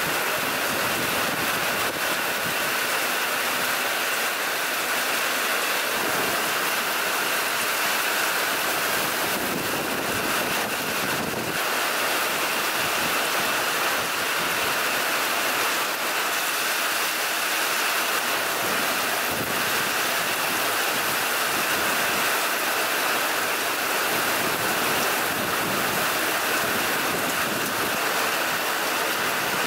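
Heavy rain pouring steadily onto pond water and coconut palms, a dense even hiss that holds at the same level throughout.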